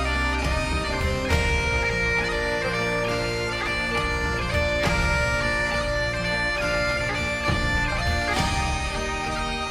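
Bagpipe music: a melody of changing notes played over steady low drones.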